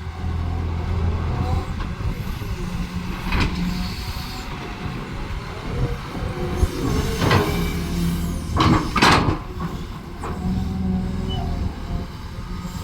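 Excavator's diesel engine running steadily, with several brief louder noisy surges about three seconds in and again between seven and nine seconds in as the machine works.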